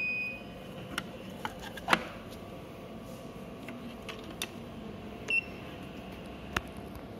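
Short electronic beeps from a BS-3000P photometer: one about half a second long at the start and a shorter one about five seconds in. Between them come a few sharp clicks and knocks of hard plastic parts being handled, the loudest about two seconds in, over a steady faint hum.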